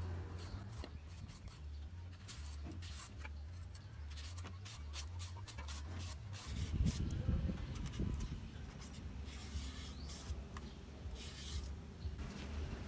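Hand peeler scraping the skin off an elephant foot yam stalk in short, irregular strokes. A louder low bump comes about seven seconds in.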